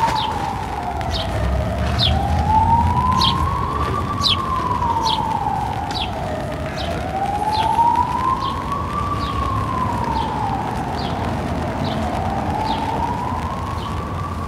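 An emergency vehicle's siren in a slow wail, its pitch rising and falling in even cycles of about five seconds.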